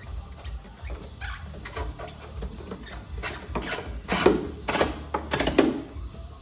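An irregular run of sharp metallic clicks and clunks from tools and hardware being handled on a motorcycle. They grow louder and more frequent past the middle.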